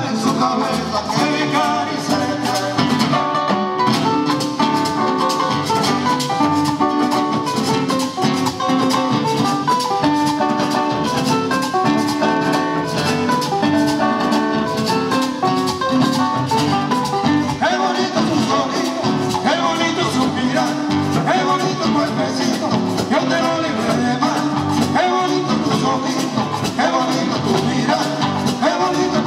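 Live Latin band music: two acoustic guitars strumming and picking, with maracas shaking and timbales keeping a steady rhythm.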